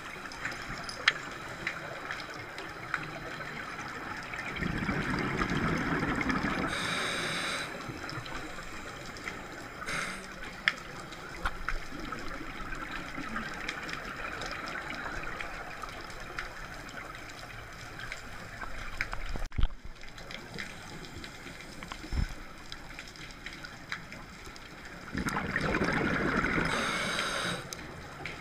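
Underwater, a scuba diver's exhaled air bubbles out in two bursts of about three seconds each, a few seconds in and near the end, over a steady hiss with scattered sharp clicks.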